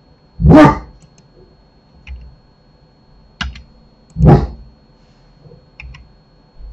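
Computer mouse and keyboard in use: a few light, sharp clicks, with two louder dull thumps about half a second in and about four seconds in.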